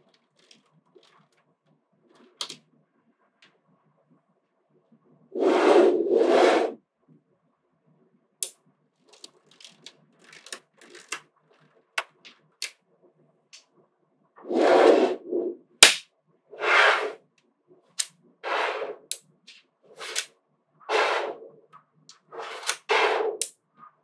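Small magnetic balls clicking and snapping onto one another as strands of them are laid onto a block of balls. Scattered sharp clicks, with longer runs of rapid clicking about five seconds in and again from about halfway on, growing denser toward the end.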